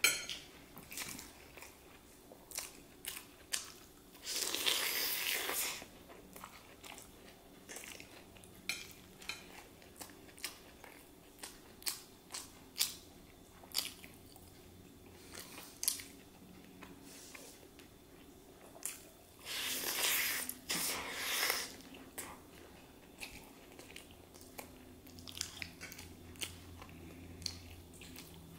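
Close-miked eating of chow mein and fried chicken legs: chewing and biting, with many short wet mouth clicks. Two longer, louder stretches come about four seconds in and around twenty seconds in.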